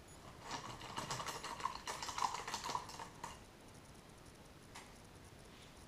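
Paintbrush dabbing and stroking paint onto paper: a quick run of small taps and scratches lasting about three seconds.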